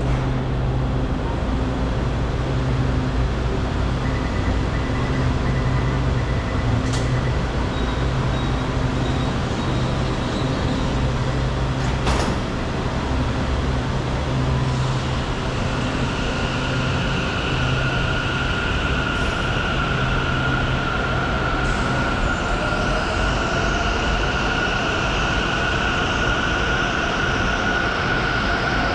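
Metro train standing at the platform with a steady low hum. It then pulls away, and from about halfway in its motors give a whine that rises in pitch as it gathers speed.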